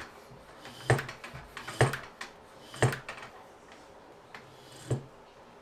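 Four sharp knocks, about a second apart with a longer gap before the last, from a bicycle wheel with a newly fitted studded tyre being handled and turned on a wooden workbench.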